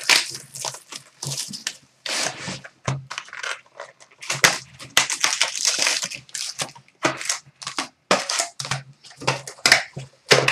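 Trading card box and card packs being torn open and handled by hand: a rapid, irregular run of tearing, crinkling and rustling noises.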